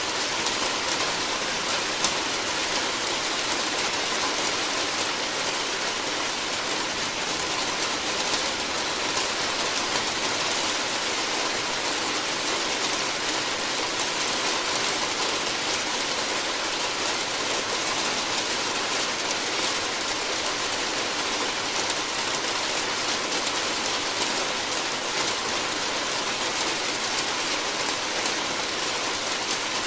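Steady rain falling on a roof: a dense, even patter with many fine drop ticks and the odd louder drip.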